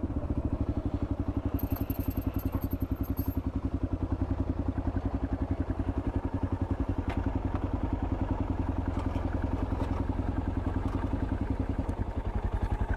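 650 cc single-cylinder dual-sport motorcycle engine running at a steady cruise, its firing pulses giving an even, rapid throb.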